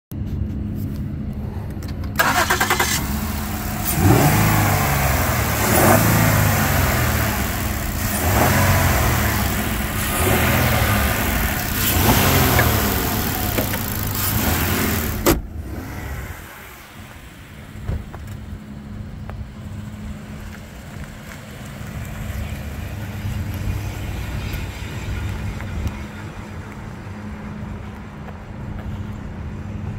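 2015 Ford Explorer's engine running, revved up and back down about five times in a row. About fifteen seconds in there is a single sharp bang, after which the engine runs more quietly as the SUV drives off.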